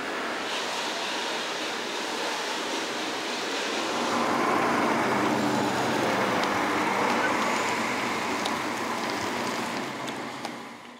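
Articulated lorry driving slowly past, its engine rumble and tyre noise coming in about four seconds in over a steady background hum. The sound fades out near the end.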